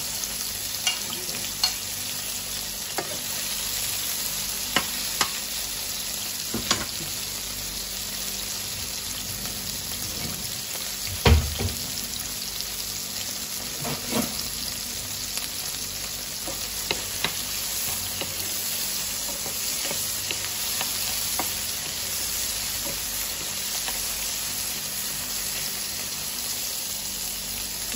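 Chopped red onion, tomato and ginger sizzling steadily in hot oil in a nonstick frying pan, stirred now and then. Occasional clicks and knocks against the pan, the loudest a thump about eleven seconds in.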